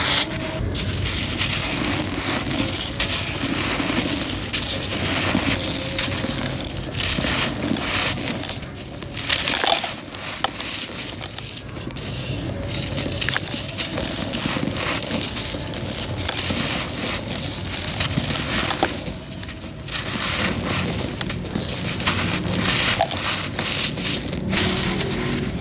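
Homemade cement being crushed and crumbled, a continuous gritty crunching full of small sharp cracks, easing off briefly twice.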